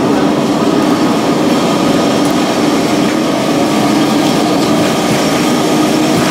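Vintage Lisbon number 28 electric tram running along its rails, a steady rattling rumble from the car with a constant low hum beneath it.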